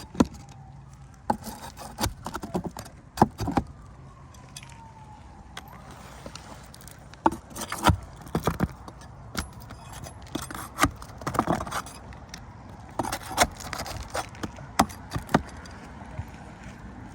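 Roofing tools prying and scraping at asphalt shingles and nails on a roof deck: irregular sharp clacks and metallic rattles with scraping in between, as shingle courses are torn back.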